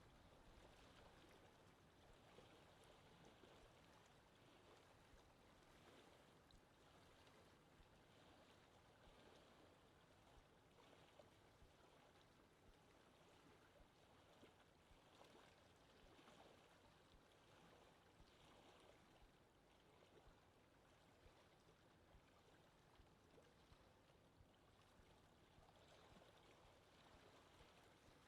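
Faint lake ambience: water lapping gently, a steady quiet wash with small scattered splashes.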